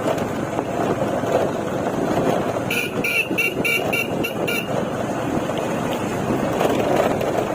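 A vehicle on the move, with steady road and wind noise. Nearly three seconds in, a horn gives a rapid series of about eight short toots over two seconds.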